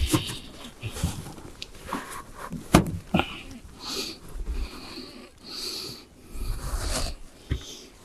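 Scrapes and clicks of a steel standing-seam roof flashing panel being handled and set in place by gloved hands, with a sharp click about three seconds in.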